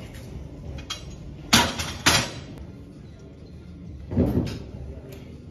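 Two sharp metal clanks about half a second apart, then a duller, lower knock a couple of seconds later: a steel barbell knocking against the hooks of a bench-press rack.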